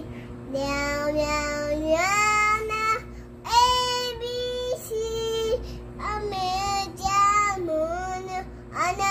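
A young girl singing in a high voice, holding notes that slide up and down in pitch.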